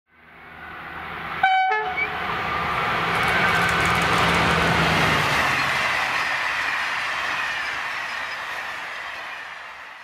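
Train horn giving a short two-note blast about a second and a half in, followed by the rushing noise of the train passing, swelling for a few seconds and then slowly dying away.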